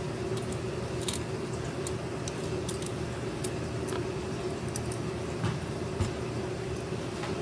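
Sparse light metallic clicks and ticks of a screwdriver working a small screw and a metal servo bracket plate being handled, over a steady background hum.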